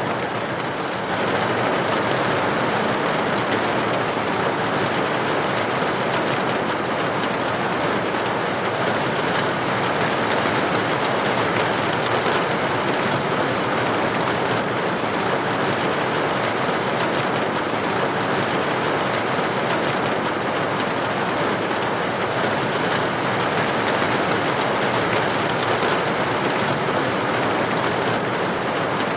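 Steady rain pattering on a window pane, a dense even hiss of drops.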